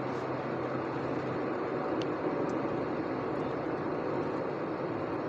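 Steady road and engine noise heard inside a moving vehicle's cab.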